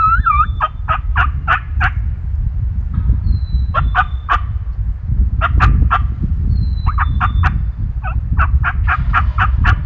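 Wild turkeys calling in several runs of short repeated notes, about four a second, over a steady low wind rumble on the microphone.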